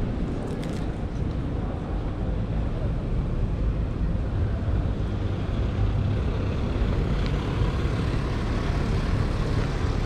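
Steady city street noise with traffic passing, heavy in the low end, and a few faint clicks about half a second to a second in.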